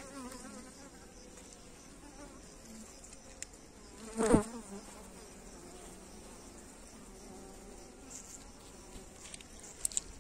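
Honeybees buzzing steadily over an open hive while a brood frame crowded with bees is lifted out, with the buzz briefly much louder about four seconds in.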